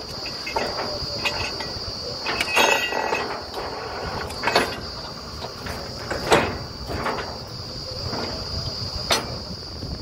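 Truck-mounted borewell drilling rig running with a low rumble and a steady high whine, with a few sharp metal clanks from work at the drill head, the loudest about six seconds in.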